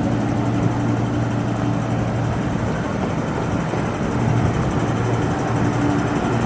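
MLR electric train standing still, its onboard equipment giving a steady low hum that dips briefly about halfway through.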